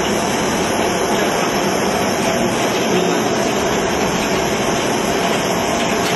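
Popcorn kernels popping densely inside the lidded stainless kettle of a stirring popcorn machine, over a steady rushing noise from the running machine. The corn is at full popping, nearly done.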